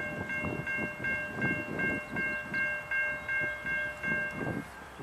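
Railroad grade crossing bell ringing in quick, even strokes, about two or three a second, then stopping near the end. The crossing warning is active, signalling an approaching train.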